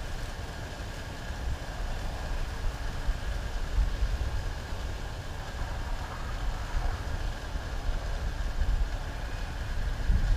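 Outdoor wind rumbling and buffeting on the microphone, an uneven low rumble that swells and eases throughout, with no distinct events.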